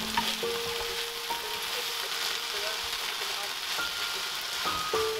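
Vegetables sizzling in a hot frying pan on a gas hob, stirred and turned with a spatula, with a few light taps against the pan.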